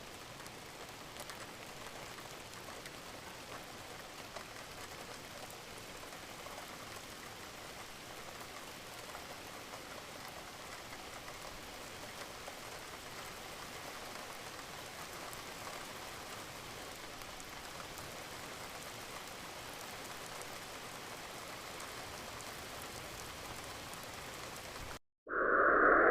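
Steady rain, an even patter with faint scattered drop ticks, which cuts off suddenly near the end. Just before the end a much louder electronic-sounding effect starts, rising in pitch.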